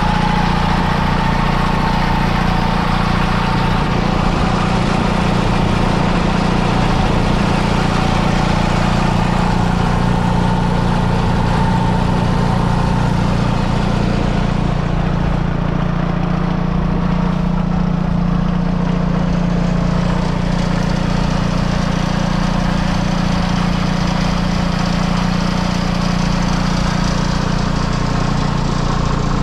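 1950 Allis-Chalmers HD5 crawler tractor's 2.3-litre two-cylinder two-stroke Detroit Diesel 2-71 engine idling steadily, close up.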